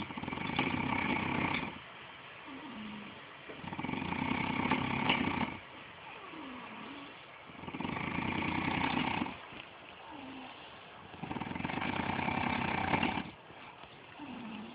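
A person snoring: four long snores, one about every four seconds, with a faint gliding whistle on the breath between them.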